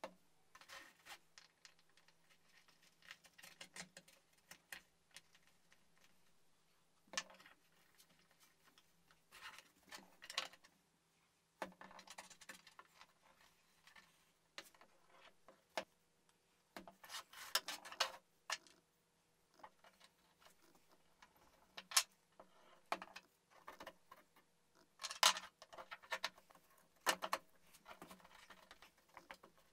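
Plywood parts being handled on a plywood workbench: irregular light taps and clicks as pieces are set down and stacked, with short scraping and rubbing as the curved arms are slid and fitted together.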